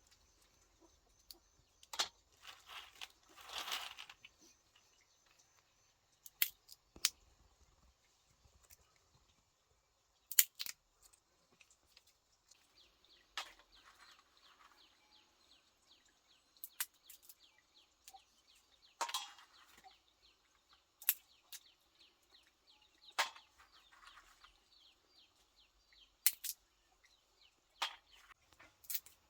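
Scattered sharp knocks and clicks, with chickens clucking.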